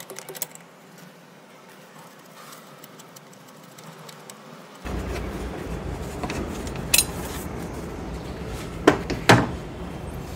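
Ratchet socket spanner clicking briefly as it turns a battery-tray bolt, then quiet fiddling; about five seconds in a steady low background noise sets in, and near the end come a sharp click and two close metallic clinks as the loosened bolt and tool are handled.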